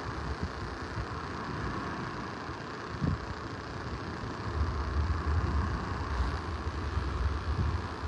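Steady, muffled hiss from a phone microphone that rain has got into, so the audio is degraded. Wind rumbles unevenly on the mic and grows stronger about halfway through.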